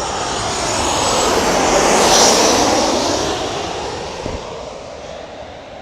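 Boeing 737-800 airliner passing low overhead on its landing approach, its CFM56 turbofan engines swelling to a peak about two seconds in, with a high whine at the loudest point, then fading away.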